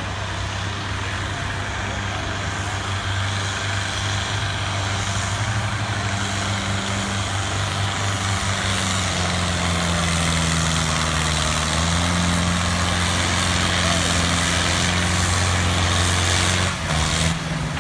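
Farm tractor engine running at full load while pulling a weight sled in a tractor pull. It is a steady, heavy drone that grows gradually louder, then cuts off abruptly about a second before the end.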